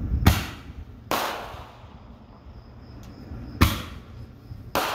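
Fireworks going off: four sharp bangs, two close together near the start and two more about three and a half seconds in, each trailing off in echo.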